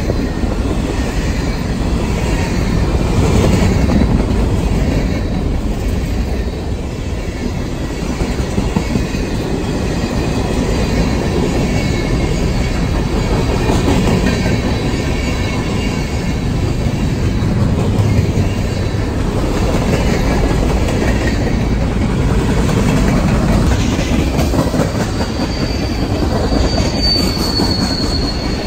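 A train's cars rolling past with a steady, loud rumble of wheels on rails. Near the end a high, thin wheel squeal rings for about three seconds.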